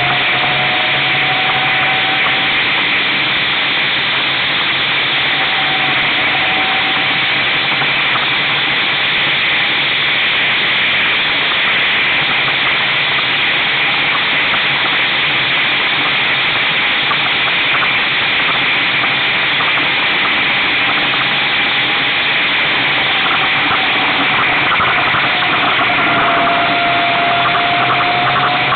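A 2009 Brammo Enertia electric motorcycle at riding speed: a steady rushing hiss of wind and road noise, with a faint thin whine from the electric drive that rises and falls a little and climbs again near the end.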